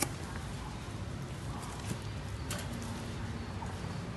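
Knocks from chickens being handled in a wire cage: a sharp knock as it starts and another about two and a half seconds in, over a steady low hum.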